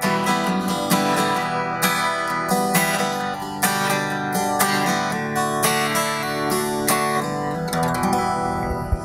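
Acoustic guitar strummed in an instrumental outro that ends a country song, its chords thinning out and fading near the end.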